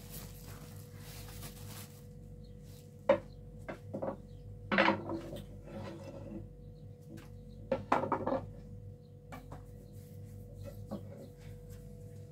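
A plastic sack-cloth rustles as it is shaken out and laid down, stopping about two seconds in; then a few sharp knocks and short clatters from a metal flour bowl and wooden bread boards and rolling pin as flatbread dough is handled. A steady faint hum runs underneath.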